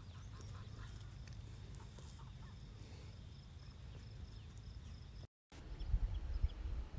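Faint outdoor ambience: scattered bird chirps and a thin steady insect tone over a low rumble. After a sudden cut near the end, wind buffets the microphone in low, irregular gusts.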